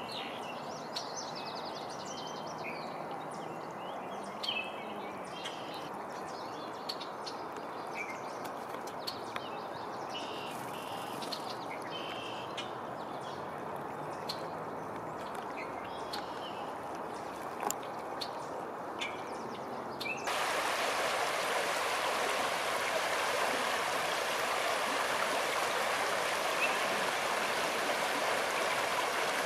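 Scattered short bird chirps and calls over a steady soft rush. About twenty seconds in, the sound cuts abruptly to the louder, brighter rush of a shallow stream rippling over rocks.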